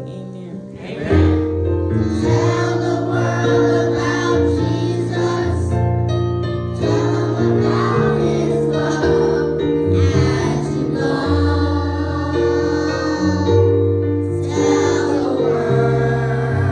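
Gospel choir singing over sustained keyboard chords. The voices come in about a second in and carry on in long phrases.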